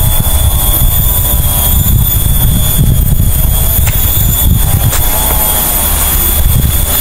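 Wind buffeting the microphone outdoors: a loud, uneven low rumble that covers the quieter sounds of picking.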